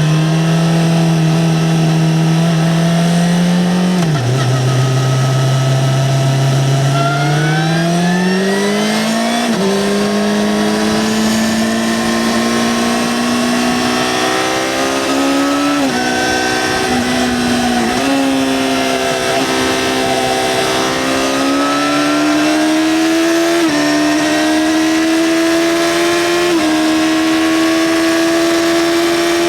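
2009 Yamaha XJ6-N's 600 cc inline-four running through its stock exhaust under way. The engine note drops sharply about four seconds in, then climbs steadily, dips briefly twice near the middle, and edges higher in small steps near the end.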